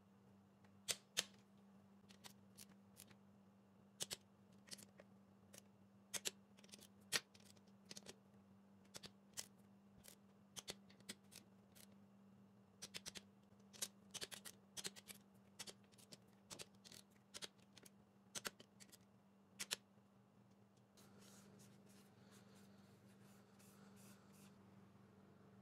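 Sharp clicks, single and in quick clusters, from a ratchet-head torque wrench tightening the crankcase cover bolts on a 10 HP Briggs & Stratton engine, over a faint steady low hum. About 21 seconds in the clicks stop and a faint rubbing of a rag wiping the engine block follows.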